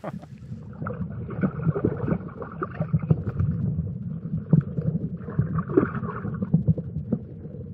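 Muffled underwater sound through a submerged camera's housing: low rumbling water movement with many scattered small clicks and knocks.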